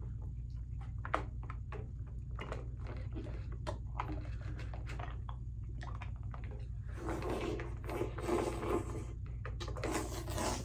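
Wet smacking and squelching mouth sounds from a face pushed into a pan of whipped cream, the mouth hunting for lollipops buried in it. There is a run of short clicks first, then breathy noise in the last few seconds, over a steady low hum.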